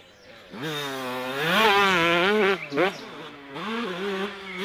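Dirt bike engine revving as the bike rides, starting about half a second in. Its pitch rises and falls repeatedly with the throttle, with a quick sharp rev about three seconds in.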